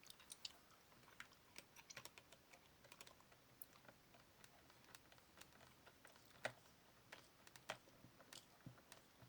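Faint, irregular clicks and taps of small plastic and metal RC car parts being handled and fitted together, with a few sharper knocks in the second half.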